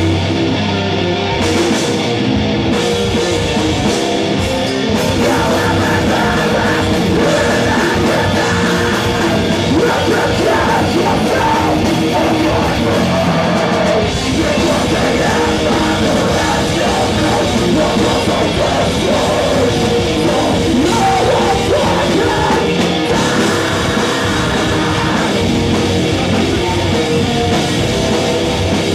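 Live metalcore band playing at full volume: distorted guitars and drums with harsh screamed vocals, a dense, unbroken wall of sound.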